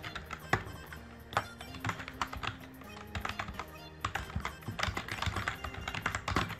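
Computer keyboard keys clicking in quick runs as a search query is typed, with quiet background music of held low notes underneath.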